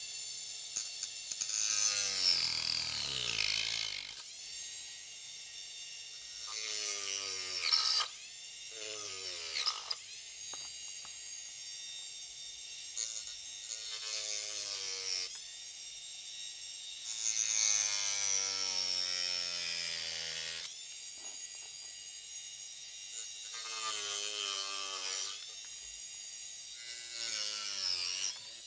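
Small hand-held rotary tool with a cutting disc cutting through plastic model-kit corner posts. It runs in several short spells, and each time its whine sweeps down in pitch.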